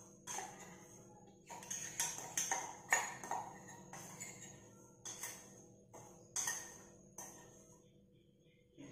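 A metal spoon clinks against a small bowl as powdered sugar is added and stirred into a beaten egg, about ten irregular, ringing clinks.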